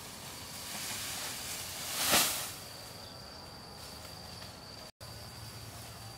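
A bundle of long grass thatch swishing and rustling as it is heaved onto a bamboo roof frame, a rush that swells and peaks about two seconds in. A steady high insect buzz runs underneath, breaking off for a moment near the end.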